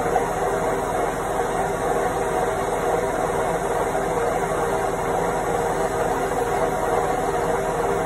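Indesit front-loading washing machine on its spin cycle: the drum spinning at a steady speed, giving an even whirring noise with a few held tones in it.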